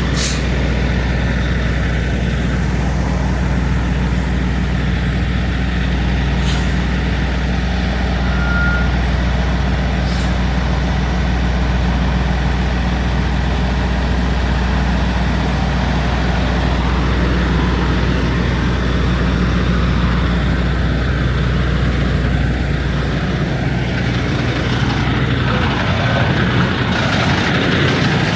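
Semi-truck diesel engine idling steadily, with a few sharp clicks; the low hum changes about 23 seconds in.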